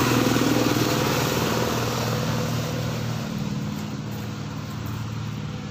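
A motor vehicle engine running, loudest at the start and fading over a few seconds, with a drop in pitch about three seconds in.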